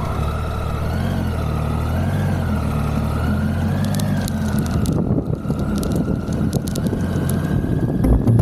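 Triumph Tiger 800's three-cylinder engine running at low speed, its revs rising and falling in the first few seconds, then steadier.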